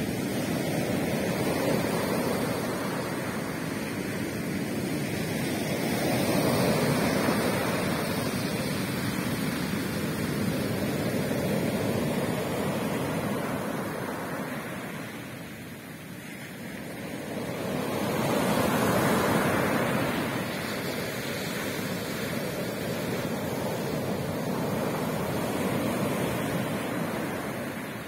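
Sea waves breaking and washing up a beach: a continuous rush of surf that swells and eases every several seconds, loudest about seven seconds in and again just before twenty seconds, with a lull around sixteen seconds.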